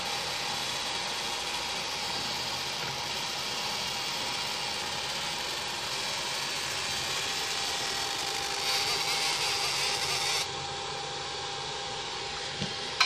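CYCJET D100 handheld laser marker running while it burns a QR code into a tyre's rubber sidewall: a steady hiss with a faint steady tone. The hiss turns brighter and louder for the last couple of seconds of marking, then drops suddenly about ten seconds in.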